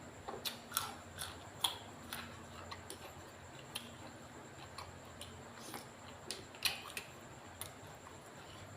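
Irregular light clicks and knocks from kitchen work, a dozen or so scattered unevenly, a few ringing briefly, over a faint steady hum.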